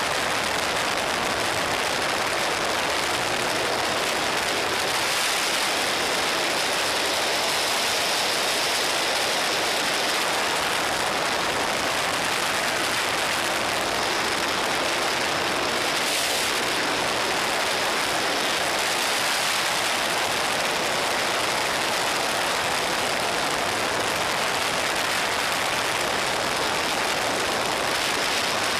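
Wind rushing hard over a motorcycle-mounted camera at steady cruising speed, with the Suzuki SV650's V-twin engine running underneath.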